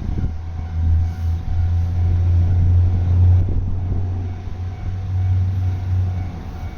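Low rumble of a passing vehicle, starting just after the beginning, loudest through the middle and dropping away about six seconds in, over a faint steady high tone.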